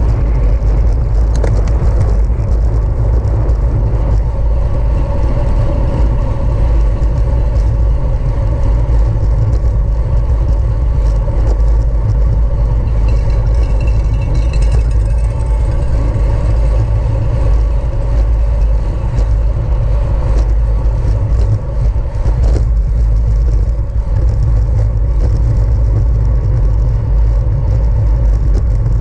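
Wind rushing over the microphone and tyre and drivetrain noise of a road bike riding at race speed: a loud, steady low rumble with a faint whir above it.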